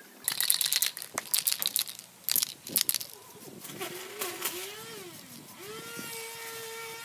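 Aerosol spray-paint can hissing in three short bursts, about a second apart. It is followed by an engine whose pitch wavers up and down and then holds a steady hum.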